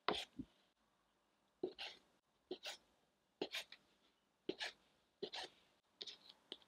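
Chinese cleaver cutting through bread dough and knocking onto a bamboo cutting board: a short, sharp double knock about once a second, repeated six or seven times.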